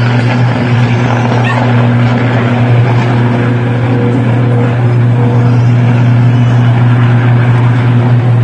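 Failing substation electrical transformer giving off a loud, steady, low buzzing roar while it vents a jet of white smoke, the sound of an ongoing electrical fault after the transformer exploded.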